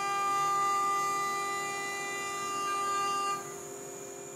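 Tormach 24R router spindle running at 24,000 rpm, a quarter-inch three-flute carbide end mill adaptive-roughing an aluminium plate: a steady high-pitched whine of cutting. About three and a half seconds in, the strongest cutting tone drops away and it gets quieter while the spindle keeps running.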